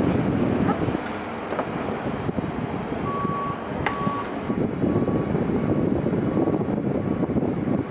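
A vehicle's reversing alarm beeping in a steady, even rhythm, starting about three seconds in, over a constant low rumble of wind on the microphone. A single sharp knock sounds about four seconds in.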